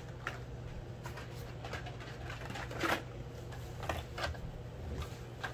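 Blister-packed Hot Wheels cars being handled and pulled from a cardboard case: a scattering of light clicks and crinkles from the plastic blisters and card backings, the sharpest about three seconds in, over a faint steady low hum.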